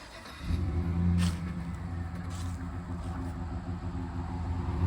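GMC van engine getting louder about half a second in, then running at a steady raised speed while in gear. The van's automatic transmission is slipping and not pulling properly.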